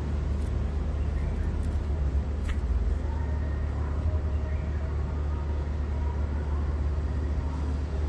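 Steady low rumble of background noise, like traffic or a motor, with faint short chirps from a caged bird and a single click about two and a half seconds in.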